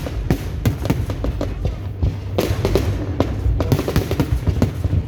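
Fireworks display going off: a dense, irregular string of bangs and crackles over a low rumble, with music playing along.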